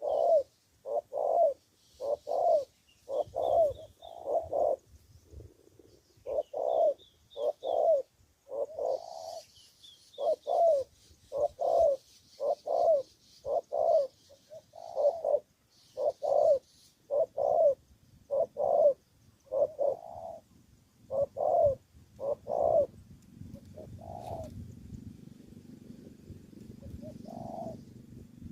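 Spotted dove cooing over and over, a long run of short coo notes about one a second or faster with brief pauses. The cooing thins out near the end as a low rumbling noise comes up.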